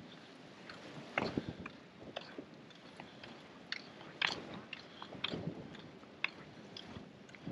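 Footsteps crunching across a beach, an uneven run of crunches and small clicks.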